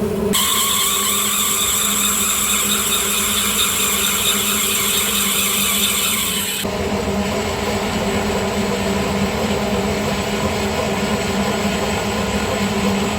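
Metal lathe running with a steady motor hum and the hiss of cutting, the cutting sound changing abruptly about halfway through.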